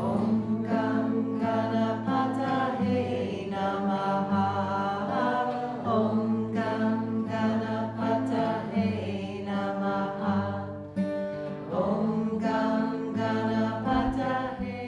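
A woman singing a mantra in long held notes while strumming an acoustic guitar.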